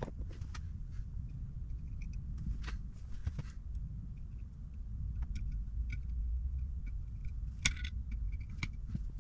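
Hand screwdriver working a small screw in a Zenith carburettor body: light metallic clicks and scrapes, with a sharper click about three-quarters of the way through, over a low steady rumble.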